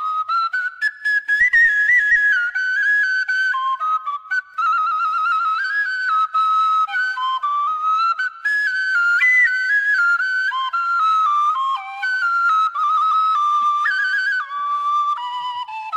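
Khmer bamboo flute playing a solo traditional melody, moving in steps from note to note with quick trills and warbled ornaments on held notes.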